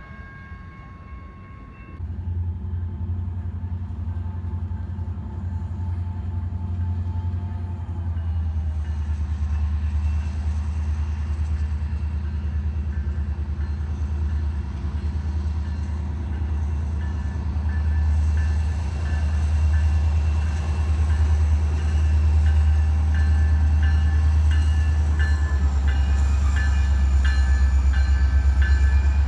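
A train rolling past, a deep rumble that jumps up about two seconds in and keeps building. In the second half a rapid, regular clicking joins it.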